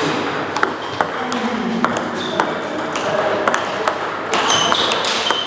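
Table tennis balls clicking sharply off paddles and table tops in a quick, irregular series, about two a second, from a rally and the neighbouring tables, over a murmur of background voices.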